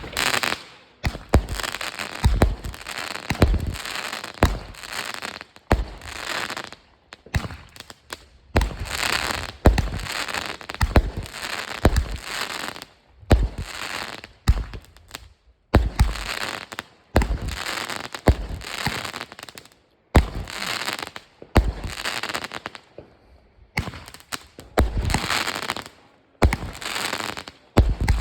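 Fireworks going off in quick succession: a run of sharp booms, each followed by a burst of crackling, with a few short pauses between volleys.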